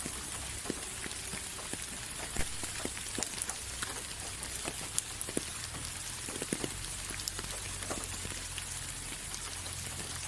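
Steady rain: an even high hiss with separate drops ticking and pattering on a surface, over a low rumble.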